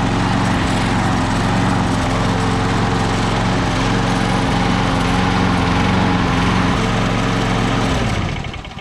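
Craftsman self-propelled lawn mower's small petrol engine running steadily, then shut off about eight seconds in, its pitch and level falling as it winds down.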